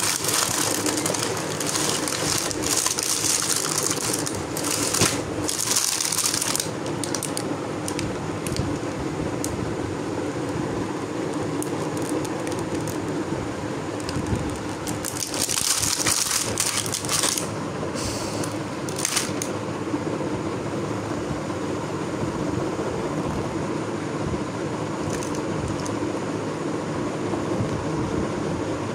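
Crinkling and rustling of a cardboard toy box and its thin clear plastic tray being handled, in several bursts: a cluster in the first few seconds and another about halfway through. A steady background whir runs underneath.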